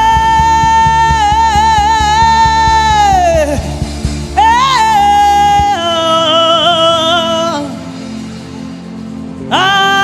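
A high voice singing long, wordless held notes with vibrato over instrumental backing. A low steady beat stops about halfway through.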